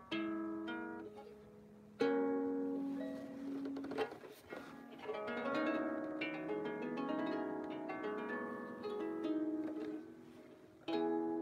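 An out-of-tune harp being plucked in a slow, free practice improvisation, its notes ringing over one another. A loud chord is struck about two seconds in and another just before the end, with a brushed sweep across the strings around four seconds.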